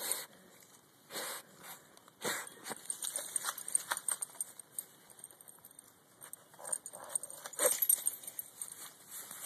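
Dachshunds digging in soil and dry pine straw: irregular scratching and rustling, with the metal tags on their collars jingling. The digging is busiest near the end.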